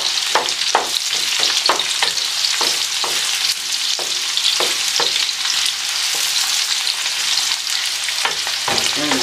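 Chopped onions sizzling steadily in hot oil in a metal wok, the first step of a curry, with a wooden spoon stirring them and scraping across the pan now and then.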